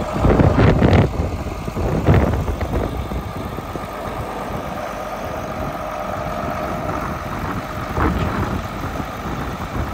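John Deere 4640's six-cylinder turbo diesel engine idling steadily, with a few brief louder surges of low rumble in the first two seconds and again near the end.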